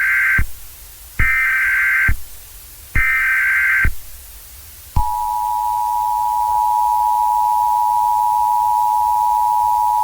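Emergency Alert System SAME header: three short, harsh digital data bursts about a second apart, the first ending just after the start. About five seconds in, the steady two-tone EAS attention signal begins and holds. Together they mark the start of an emergency alert broadcast.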